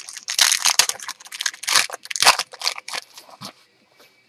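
Trading cards and their foil pack wrappers being handled: a quick run of papery rustling and crinkling that stops about three and a half seconds in.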